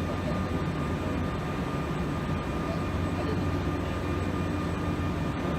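Large portal milling machine running: a steady mechanical hum with a constant high-pitched whine over a low rumble.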